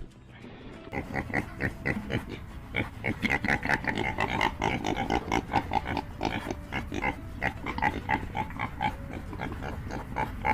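A pig, likely the boar from the clip, grunting and squealing in a rapid run of short calls, several a second, starting about a second in.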